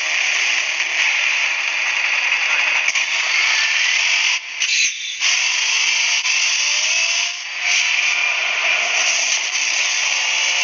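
Loud, steady hissing noise, like a rushing sound effect in a promotional soundtrack. It cuts out briefly twice near the middle, with a faint rising tone in between.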